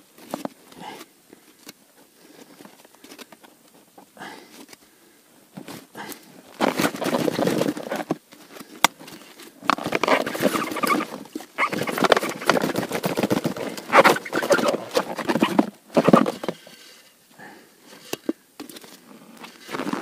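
Water poured from a plastic bottle at an ice-fishing hole, with the bottle crackling in the hand: quiet at first, then several bursts of splashing and crackling noise a second or more long, dying down near the end.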